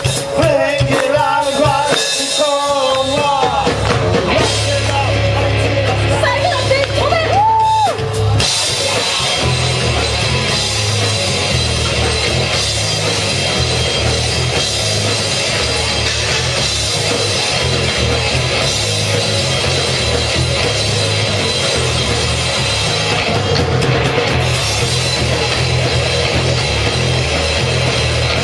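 Live rock band playing, with a sung voice gliding up and down over drums for the first several seconds, then the full band with drum kit and electric guitar coming in hard about eight seconds in and playing on steadily.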